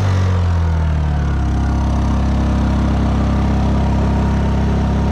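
Honda EU3200i inverter generator running in eco mode, its engine speeding up over about the first second and a half as another work light's load comes on, bringing it to about 2000 watts, then running steadily at the higher speed.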